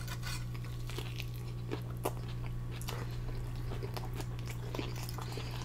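Close-miked biting and chewing of a stuffed wrap: a scatter of short, sharp mouth clicks and crunches over a steady low hum.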